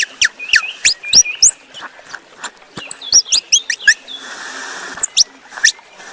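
Squirrel giving rapid high-pitched chirps and squeaks, several a second, each sweeping sharply in pitch, with a short burst of hiss about two-thirds of the way through.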